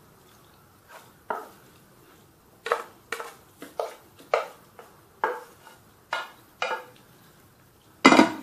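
A wooden spoon scraping and knocking against a metal bowl and an aluminium baking tray in about a dozen short strokes, as a cooked minced meat and liver mixture is spooned out and spread. A louder clatter comes near the end.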